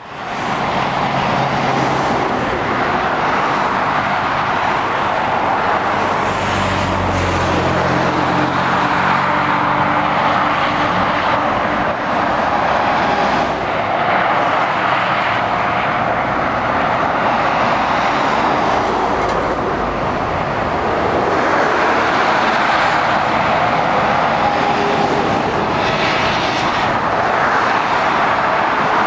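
Road traffic of lorries and cars passing below: a steady tyre and engine roar, with the low drone of a heavy lorry's diesel engine coming through about six to eleven seconds in.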